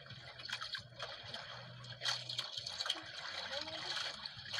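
Sea water lapping and splashing against the hull of a small outrigger boat, with irregular sharp splashes over a steady wash.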